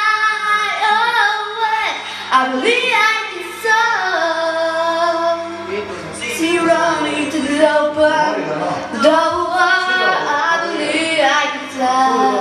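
Female voice singing a melodic song, holding long notes and gliding between them.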